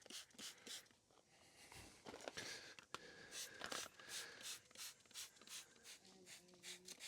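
Faint repeated squirts from a trigger spray bottle wetting a tire with soapy water, a quick hiss about three times a second: a leak check, looking for bubbles where air escapes.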